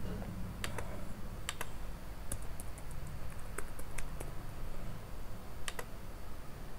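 Computer keyboard typing a password: a quick run of key clicks in the middle, with a few scattered single clicks before and after. A low steady hum sits underneath.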